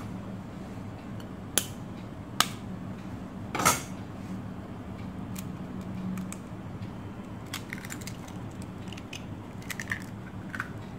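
A hen's egg being tapped and cracked on the rim of a glass bowl: two sharp taps, then a louder crack of the shell about three and a half seconds in, followed by faint clicks of the shell later on.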